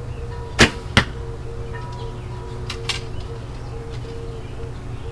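A shot from a KainoKai recurve bow: a sharp snap as the string is released, followed about a third of a second later by a second sharp hit as the arrow strikes the target.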